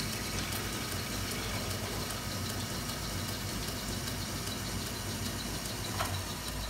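Small metal lathe running with its chuck spinning, while the drill bit in the tailstock is backed out of an aluminium workpiece: a steady motor hum with light, regular ticking. A single sharp click comes near the end.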